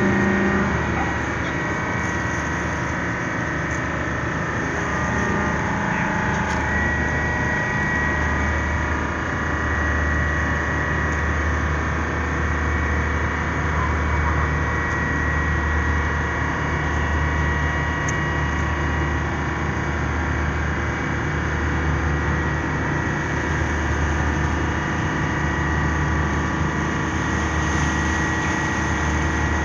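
Heavy diesel engine running steadily during the ship's docking, a low pulsing drone with a faint steady whine above it.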